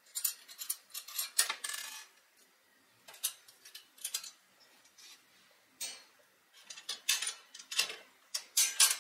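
Black metal dish drying rack being taken apart by hand: irregular light metallic clinks and brief scrapes as the wire shelf and frame pieces are worked loose.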